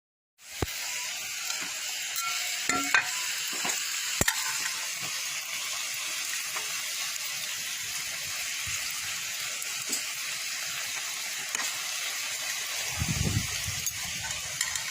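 Pork sizzling as it cooks, a steady hiss with occasional sharp pops and clicks.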